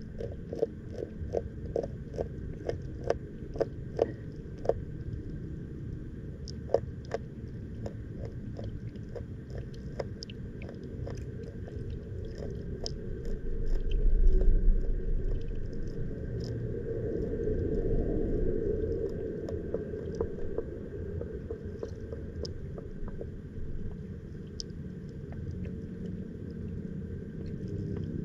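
Underwater sound through a submerged camera's housing: steady low muffled rumbling with a run of sharp clicks, about two a second for the first few seconds, then scattered clicks. A louder low rumble swells and fades about halfway through.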